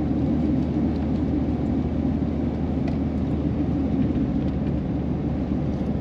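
Steady low rumble of engine and road noise inside the cab of a 2000 Chevrolet Silverado 2500 pickup driving at speed on a winding paved road.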